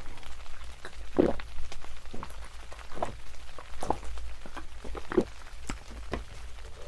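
Close-miked eating sounds: an irregular run of small clicks and soft smacks, as of chewing food and chopsticks touching dishes.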